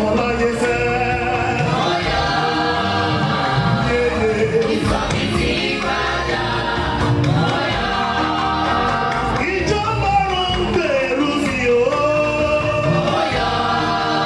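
Gospel choir of men and women singing together through microphones.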